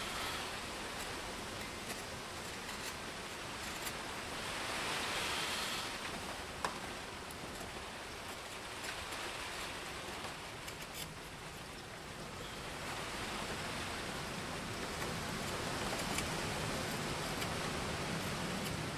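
Schrade SCHF42D knife shaving a wooden spatula by hand, faint scraping strokes and a few small clicks, one sharper click about six seconds in. Under it a steady rushing noise of wind and rain, swelling briefly about five seconds in.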